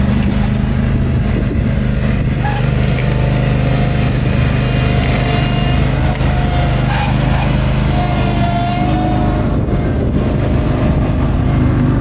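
An engine running steadily with a low, even hum, and fainter higher tones that waver over it.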